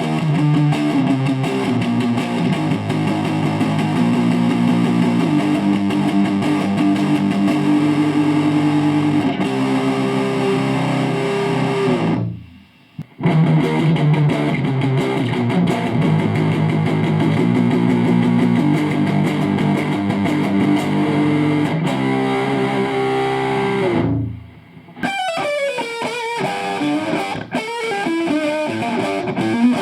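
Distorted electric guitar played through an amp with a Celestion 12-inch guitar speaker: a chord riff that stops dead about 12 seconds in, is played again, and gives way to a different single-note passage near the end.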